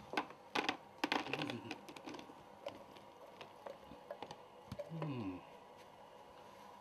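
Canned kidney beans being shaken and scraped out of an opened tin into a plastic tub with a metal fork: irregular clicks and taps of the fork against the tin and of beans dropping into the tub, loudest in the first two seconds.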